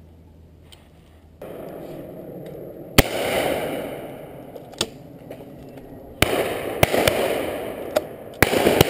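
Shotgun shots: three loud shots about three, six and eight and a half seconds in, among several fainter shots from other guns further off, each trailing a rolling echo.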